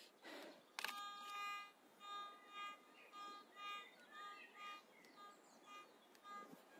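Garrett ATX pulse-induction metal detector sounding its buzzy pitched target tone over and over, about twice a second, as the coil is swept back and forth over a copper rod buried at 45 cm; the first tone, about a second in, is the longest. The repeated clear signal shows the target is detected at that depth.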